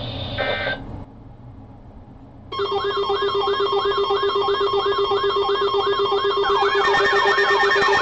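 Several NOAA weather alert radios going off at once about two and a half seconds in: a warbling chirp repeating about three times a second over a steady pulsing beep and higher held tones, with more alarms joining near the end. The radios are sounding for a severe thunderstorm warning.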